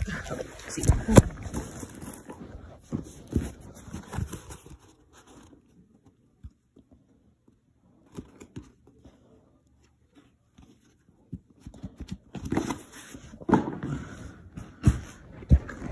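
Handling noise: scattered knocks, scrapes and rustling as a phone and a printed cardboard LEGO box piece are handled, falling almost quiet for several seconds in the middle before the knocks and rustling return.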